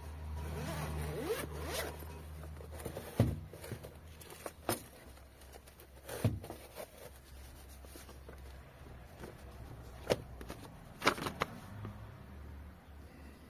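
Zipper on a hard-shell drone carrying case being run open around its edge in quick scratchy pulls, followed by several sharp knocks and handling noises as the case is opened and its contents taken out.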